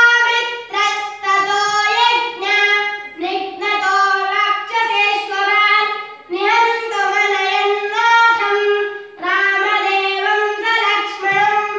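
A boy chanting a Sanskrit verse (shloka) to a sung melody, solo and unaccompanied, in held notes broken into phrases by short pauses for breath.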